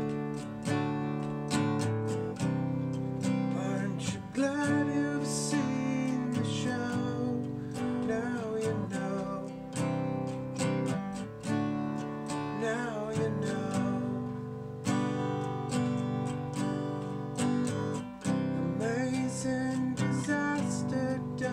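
Acoustic guitar strummed in a steady rhythm: an instrumental passage of a song, without sung words.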